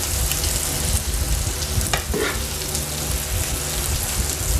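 Food sizzling on a 2-in-1 electric grill and hot-pot pan, a steady crackling hiss.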